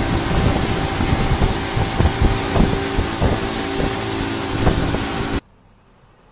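Small motorboat underway at speed: a steady engine drone under heavy wind noise on the microphone, with occasional thumps. It cuts off abruptly about five seconds in, leaving only a faint background.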